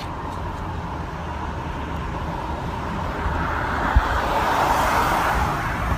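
Steady road noise from a moving car, swelling for a couple of seconds in the second half, with a single knock about four seconds in.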